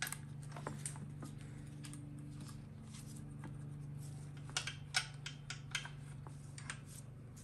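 Light metallic clicks and taps from a GM TH350 valve body being handled and seated on the transmission case, with a small cluster of sharper clicks about five seconds in, over a steady low hum.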